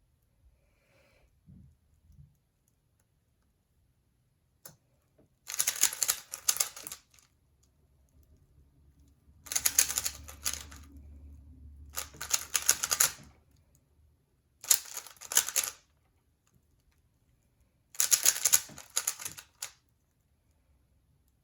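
A 3x3 plastic speedcube being turned quickly: five bursts of rapid clattering clicks, each lasting a second or so, separated by pauses of a few seconds, as sequences of algorithm moves are executed.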